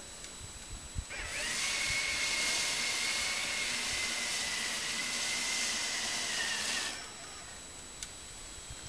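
A small electric motor whines steadily for about six seconds, starting about a second in with a brief rise in pitch, then cutting off.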